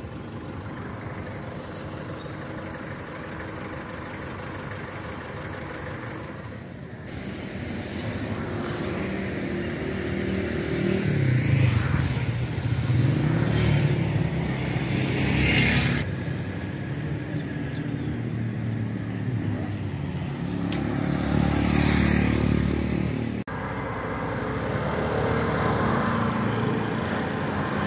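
Motorcycle engine running while being ridden, its pitch rising and falling with speed. The sound changes abruptly three times.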